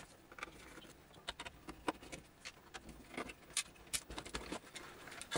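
Faint, scattered clicks and light taps of a plastic computer case and its circuit board being handled as the board is worked loose and lifted out of the enclosure.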